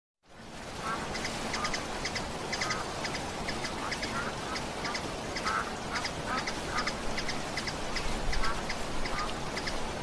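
Ducks quacking in quick, repeated short calls over the steady rush of a waterfall. The sound fades in just after the start.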